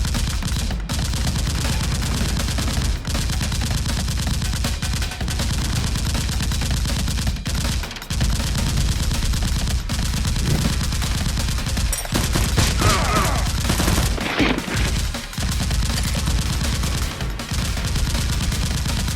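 Continuous rapid automatic gunfire, a realistic gun sound effect laid over a Nerf blaster fight, with a short wavering pitched tone about two-thirds of the way in.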